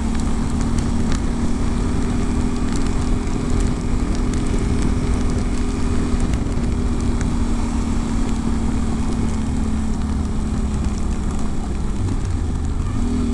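Yamaha Ténéré 700's parallel-twin engine running at a steady, even pitch while riding, over a dense low rumble. The engine note drops away briefly near the end and then picks back up.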